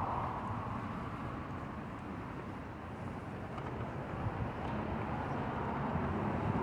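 Steady outdoor background rumble of city traffic.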